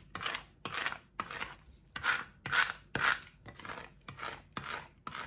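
A Cricut scraper tool rubbed in short strokes over transfer tape laid on cut vinyl, burnishing it so the vinyl sticks to the tape. The scraping comes about twice a second.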